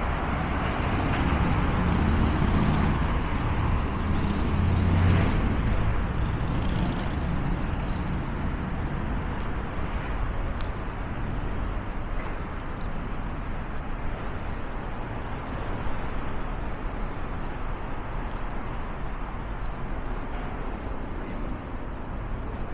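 Street traffic: a vehicle engine runs close by for the first several seconds, loudest about five seconds in, then fades into a steady hum of passing traffic.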